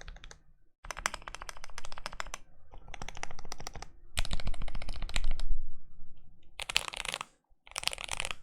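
Mechanical keyboard typing on a stacked-acrylic Alice board with lubed Zealios V2 62g tactile switches and GMK keycaps: fast runs of keystrokes in bursts of about a second, with short pauses between. Near the end the keystrokes run together into dense bursts.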